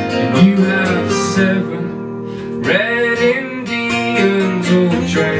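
Two acoustic guitars strumming chords while a man sings the melody, an unplugged band playing live without drums.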